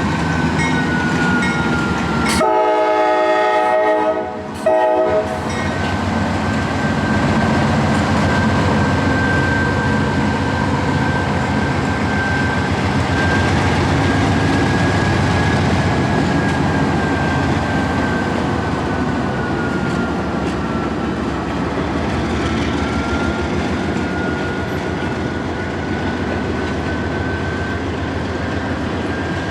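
Two CSX EMD SD40-2 diesel locomotives working a freight train, with a steady engine rumble and a high whine that drifts slightly in pitch. About two seconds in, the locomotive's horn sounds for roughly three seconds, with a brief break near its end.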